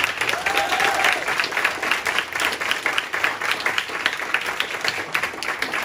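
Audience applauding, many hands clapping steadily throughout.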